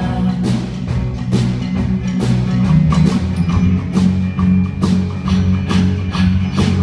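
Live band playing an instrumental passage: strummed acoustic guitar over a steady drum-kit beat of about two strokes a second.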